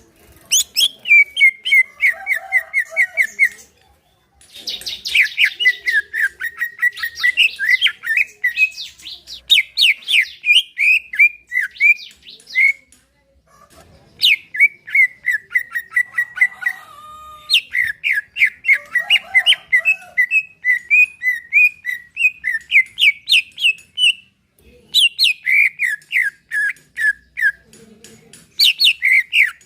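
Cucak ijo (greater green leafbird) singing: long phrases of rapid, repeated sharp notes, broken by short pauses every several seconds.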